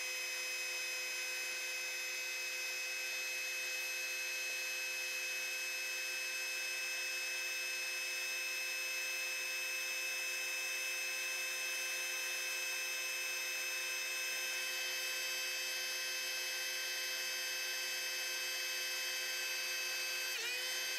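A heat gun running steadily at full power: its fan motor gives a steady hum of several fixed tones, raised in pitch because the footage is sped up three times.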